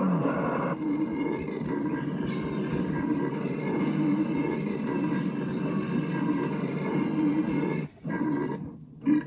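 A long, drawn-out belch, low and rough, lasting about eight seconds before it breaks off. Two short bursts follow near the end.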